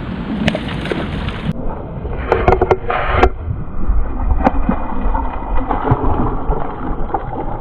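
Hooked fish thrashing and splashing at the water's surface beside the boat as it is brought to a landing net, with a burst of loud splashing a couple of seconds in, over a steady low rumble of wind on the microphone.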